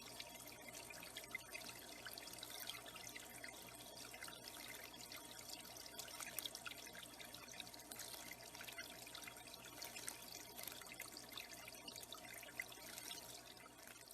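The running water of a backyard bird pond, trickling and splashing steadily.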